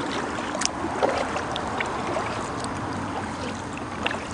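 Kayak being paddled on a shallow river: soft water swishing with a few small drips and splashes from the paddle over a steady hiss.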